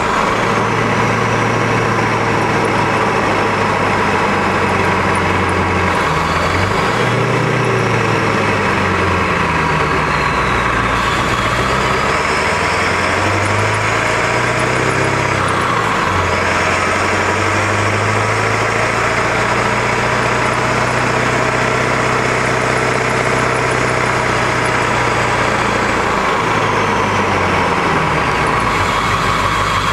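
Ford F-250 Power Stroke V8 turbo-diesel driving, heard from beneath the truck by the rear axle. The engine and drivetrain note rises and falls several times as the truck accelerates, shifts and slows, over steady road and tyre noise.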